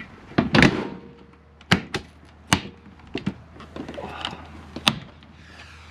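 Sharp clicks and knocks of the fasteners and metal skin of an AS350 B2 Squirrel helicopter's side cowling panel being released and handled. About half a second in there is a louder thunk, followed by half a dozen lighter clicks spread over the next few seconds.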